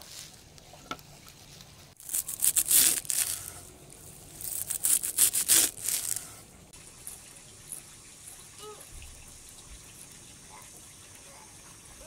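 A large kitchen knife chopping a heap of fresh herbs (dill, parsley and long green leaves) on a wooden board: two bursts of rapid chopping, one about two seconds in and another about four seconds in, each lasting a second or two.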